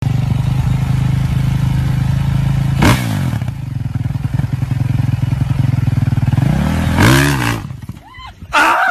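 Dirt bike engine idling, revved twice: a quick blip about three seconds in and a longer rev that rises and falls around seven seconds. The engine note then drops away as the bike takes off through the sand, and a short loud burst comes near the end.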